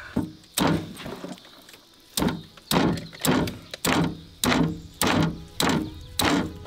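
A hatchet chopping through an alligator gar's armored, scaled hide and into the wooden board beneath. One chop, then after a pause about eight more in a steady rhythm, roughly two every second.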